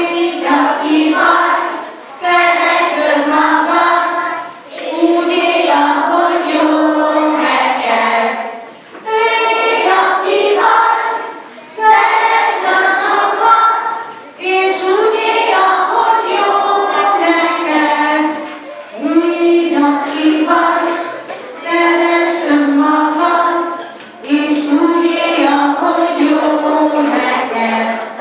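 A group of children singing a song together in unison, in phrases of a few seconds each with short breaks between them.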